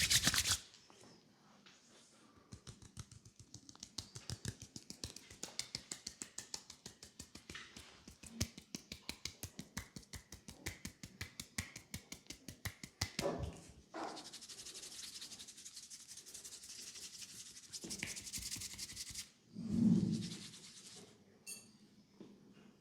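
Hands-on head massage: rapid, even tapping on the head at about six taps a second for some ten seconds, then a steady rubbing hiss for a few seconds, and a dull thump near the end.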